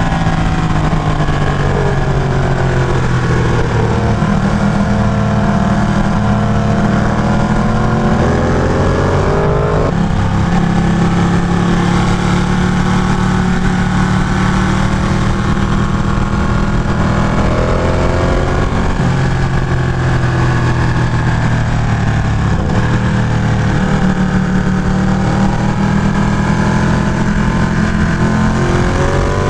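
Ducati 1199 Panigale's Superquadro L-twin engine under way, revs rising and falling with the throttle, with several abrupt pitch steps at gear changes, over steady wind rush.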